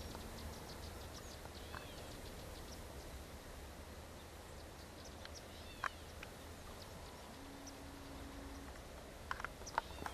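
Faint open-country dawn ambience with scattered short bird chirps and calls: a few around two seconds in, a sharper one near six seconds and a cluster near the end. A brief low steady hum comes in during the second half.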